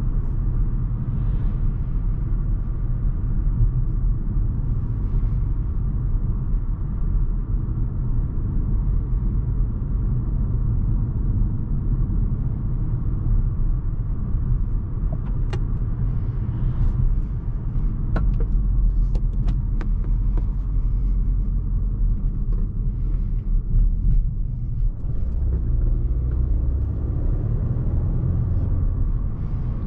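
Interior cabin noise of a 2020 Volvo V60 T5 Cross Country driving on a road: a steady low rumble of its 2.0-litre turbocharged four-cylinder engine and tyres, with a few light clicks about halfway through.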